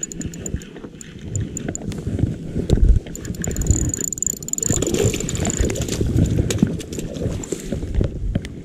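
Low rumbling water and wind noise with a fast, even, high-pitched ticking running over it, strongest about four seconds in.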